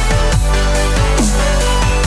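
Electronic dance background music with a heavy steady bass and repeated falling pitch drops about twice a second.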